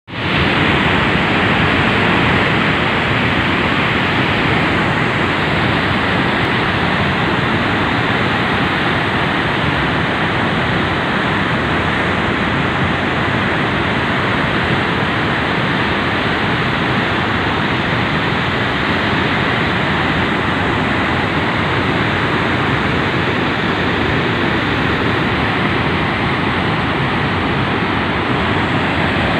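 Water rushing through the open spillway gates of a dam: a loud, steady rush that does not change.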